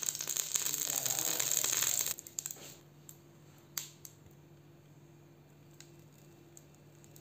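A metal spoon scraping and spreading oil over the non-stick plates of an electric sandwich toaster: a dense, scratchy, crackling noise that stops abruptly about two seconds in. After that only a low steady hum, with one light knock a little before four seconds in.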